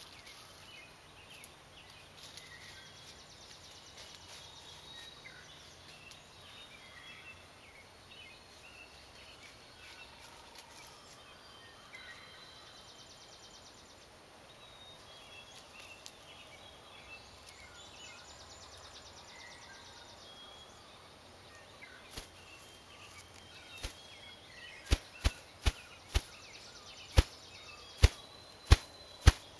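Male ruffed grouse drumming with his wings on a rock: a few single thumps near the end, first about a second apart and then coming faster. This drumming is the male's courtship and territorial display.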